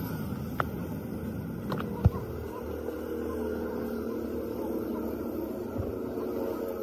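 A steady motor-like hum with background noise, broken by a few sharp knocks, the loudest about two seconds in.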